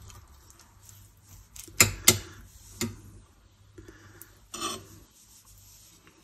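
Metal spoon scraping and knocking against a stainless steel pot and a bowl as cooked rice is scooped out and served: a few sharp clicks about two and three seconds in, and a short scrape a little later.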